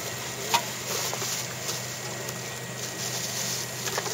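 Bags and gear being handled and packed, with faint scattered clicks and one sharp click about half a second in, over a steady low background hum.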